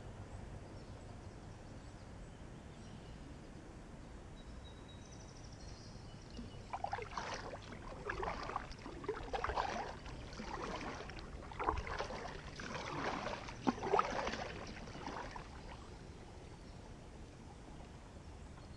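Double-bladed kayak paddle dipping and pulling through calm river water: a run of six or seven splashy strokes about a second apart through the middle, with only faint outdoor background before and after.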